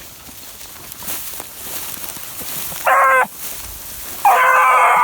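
Beagle hounds baying while running a rabbit: one short bay about three seconds in, then a longer one near the end.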